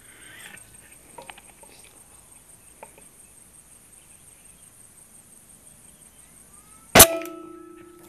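A single shot from a PCP air rifle about seven seconds in: a sharp crack, then a short metallic ring that fades over about a second.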